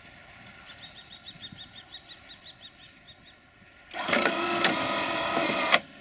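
A rapid series of high chirps, about six a second, then a loud blast of a diesel locomotive's air horn lasting about two seconds and cut off sharply.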